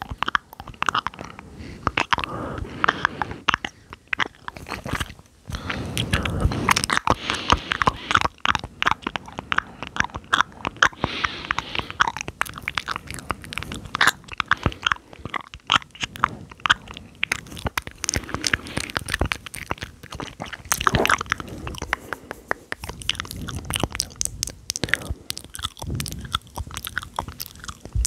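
Close-miked ASMR mouth sounds: a rapid, continuous run of wet clicks and smacks from lips and tongue, with a few denser stretches.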